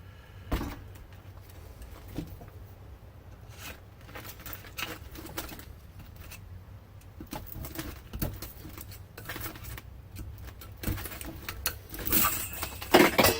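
Hand work on a scrapped electric motor: scattered knocks, taps and scrapes of steel laminations and tools, ending in a few louder metal clanks that ring briefly.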